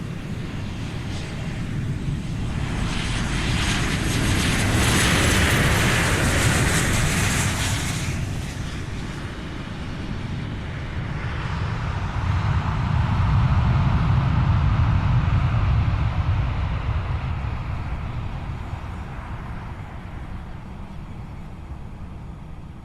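Airplane taking off. The engine noise swells to a peak with a lot of hiss about four to eight seconds in and eases off. It swells again, heavier and lower, around thirteen to sixteen seconds in, then slowly fades away.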